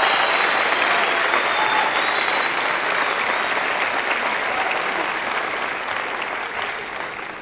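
Audience applauding, a dense steady clapping that gradually thins and fades out near the end.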